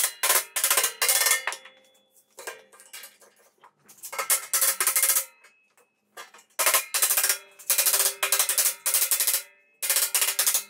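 Quarter-inch laser-cut steel plates being knocked rapidly as tabs are driven into their slots: clattering bursts of about a second each with short pauses between them, the steel ringing with a metallic tone.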